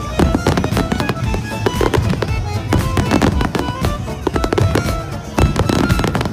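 Aerial fireworks bursting in quick succession, with bangs and crackling several times a second, over music with held tones.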